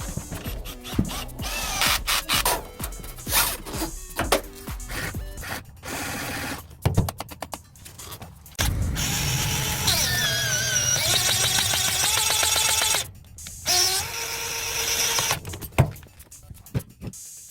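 A power tool running for a few seconds at a time, with clattering work noises, over background music.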